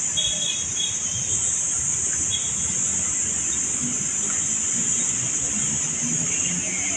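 Steady high-pitched drone of insects, typical of daytime cicadas in the park trees, with a few short bird chirps in the first few seconds and a low rumble underneath.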